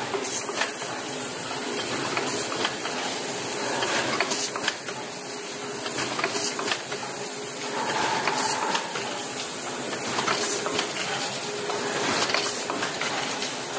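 Automatic blister packaging machine running: a steady mechanical hiss with frequent sharp clicks from its moving parts.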